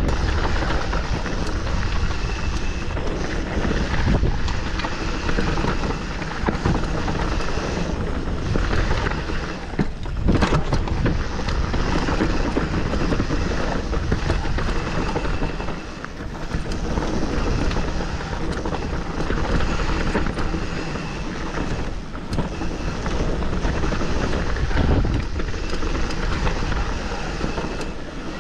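Wind buffeting the microphone of a mountain bike descending a rough downhill trail, with tyre noise and the bike rattling and knocking over bumps throughout.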